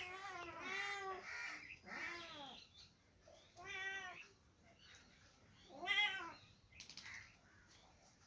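Kittens meowing repeatedly: a string of short meows that rise and fall in pitch, with gaps between them and the loudest about six seconds in.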